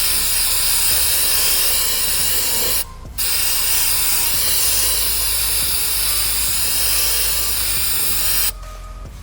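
Aerosol can of brake cleaner spraying in two long bursts of steady hiss, with a short break about three seconds in; the spraying stops near the end.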